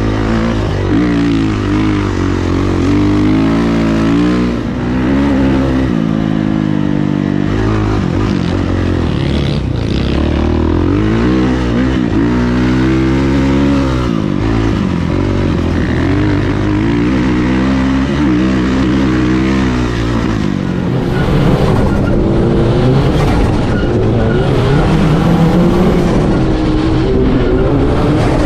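Dirt bike engine revving up and down under throttle, its pitch rising and falling again and again. About twenty seconds in it gives way to the slightly louder, steadier running of a sand rail buggy's engine.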